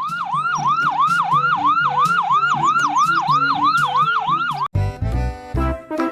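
Fast yelp siren, a rapidly repeating rising sweep about three times a second. It cuts off abruptly about four and a half seconds in and gives way to upbeat, bouncy music.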